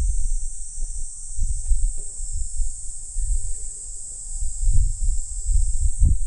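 Wind buffeting the microphone in gusts, a low rumble that swells and drops every second or two, over a steady high-pitched drone of insects.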